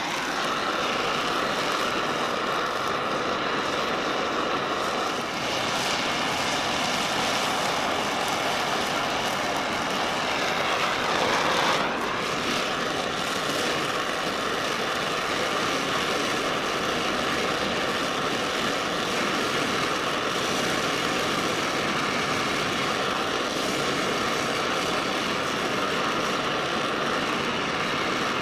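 Oxy-fuel torch flame hissing steadily as it heats a cast iron casting for brazing, briefly louder about halfway through.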